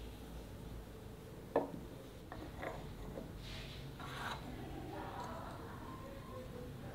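Light rubbing and handling of wood, with one sharp knock about a second and a half in, then a few small clicks and soft scraping.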